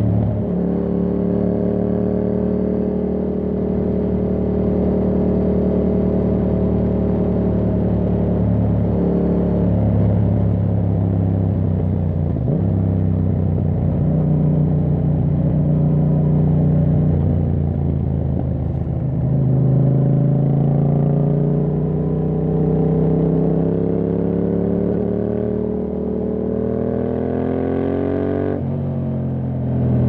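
Yamaha MT-07's 689 cc parallel-twin engine through an Akrapovic full carbon exhaust, ridden on the road. The exhaust note holds, eases and steps in pitch with throttle and gear changes, then climbs steadily over the last few seconds before dropping sharply near the end.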